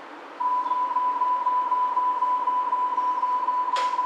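Warning tone inside a Hamburg DT3-E U-Bahn car: one steady high beep starts about half a second in and holds on, with a sharp click near the end.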